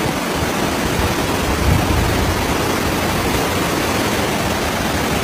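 Muddy floodwater rushing down a street as a fast torrent, a steady rush of water noise.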